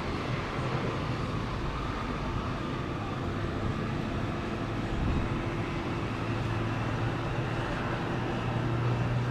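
Steady rumble of city rail and road traffic, with a low hum that grows a little louder near the end.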